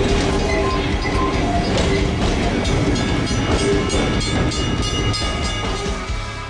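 Narrow-gauge heritage train running along the line, with wheels clicking over the rails.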